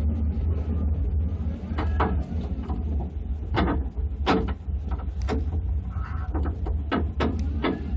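Off-road vehicle driving over a rough gravel track: a steady low rumble with about a dozen irregular clunks and rattles from the body and suspension as it goes over the bumps.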